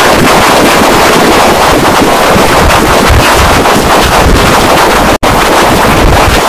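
Cartoon soundtrack run through heavy distortion effects: a harsh, clipped wall of noise with no clear voice or tune in it, broken by a brief drop-out about five seconds in.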